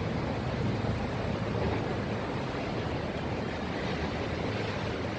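Scania P360 tractor unit's diesel engine idling with a steady low hum under a constant rushing noise.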